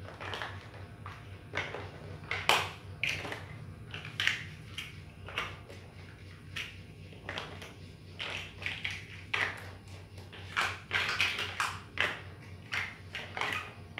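Chunky plastic building bricks clicking and clattering as they are picked from a loose pile and pressed onto a model: irregular taps, some in quick runs.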